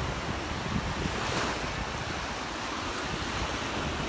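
Gulf of Mexico surf washing onto the beach, with wind buffeting the microphone; the wash swells briefly about a second and a half in.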